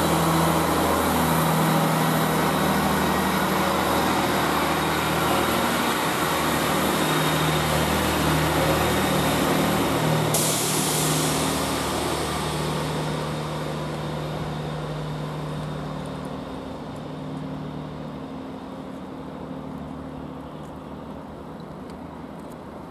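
Diesel multiple unit engine running as the train pulls away, its engine note shifting in steps and fading steadily. About ten seconds in, a sudden hiss of air starts and trails off over several seconds.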